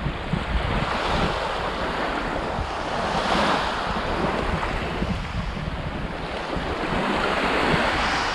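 Small waves washing onto a pebble beach, swelling about three seconds in and again near the end, over a low rumble of wind buffeting the microphone.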